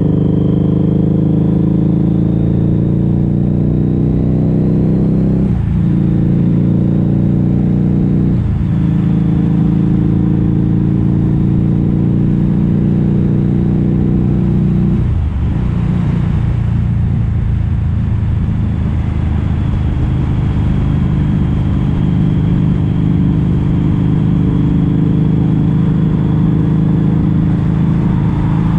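Harley-Davidson V-Rod Muscle's liquid-cooled V-twin running through Vance & Hines slip-on exhausts with the catalytic converters removed, at riding speed. The engine note rises as it pulls, breaks briefly at gear changes about five and eight seconds in, dips again around fifteen seconds, then runs steadily at cruise.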